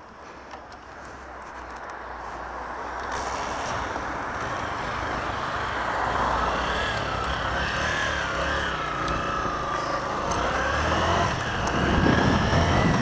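Motorcycle engine running as the bike pulls away and rides, mixed with wind and road rush that grows steadily louder over the first several seconds. A wavering whine sits above it in the middle.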